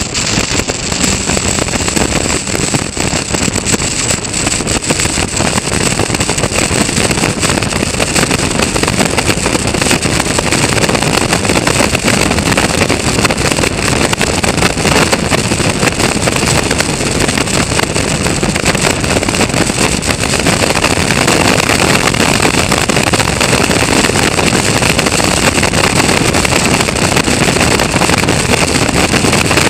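Caterham race car's engine running hard at speed, heard from the car's onboard camera with wind rushing over the microphone, growing slightly louder along the straight.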